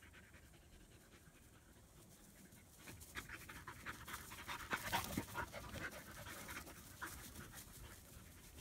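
German Shepherd puppy panting in quick, short breaths during rough play. It is faint at first and grows louder about three seconds in, loudest around the middle.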